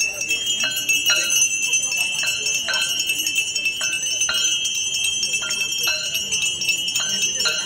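Aarti bells ringing in a continuous metallic clangour. Sharp strokes come in pairs about every second and a half.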